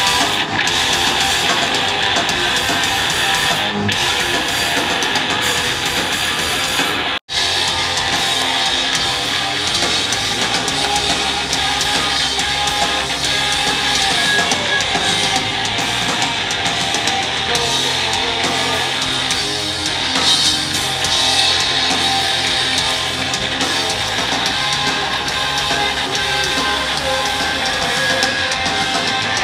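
Live rock band playing loud heavy music: electric guitars, bass and drum kit, picked up by a camera microphone in the crowd. The sound cuts out for an instant about seven seconds in, at a splice between recorded clips.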